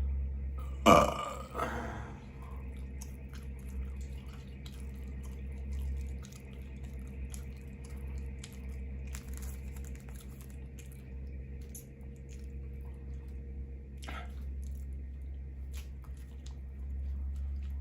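A single loud burp about a second in, lasting about a second, with a softer short mouth sound near the end, over a steady low hum.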